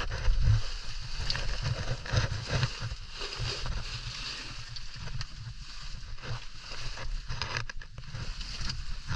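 Rustling, scraping and knocking of a caver moving through a tight rock passage, with irregular low bumps of the camera being jostled and scattered small clicks.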